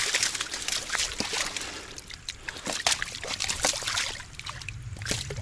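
Water splashing and sloshing in quick, irregular bursts as a hooked wild carp (sazan) thrashes at the surface while being landed.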